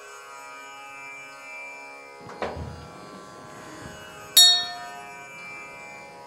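Meditative instrumental background music of sustained drone-like tones. A soft low thump comes about two and a half seconds in, and a bright chime strike rings out about four and a half seconds in, the loudest moment.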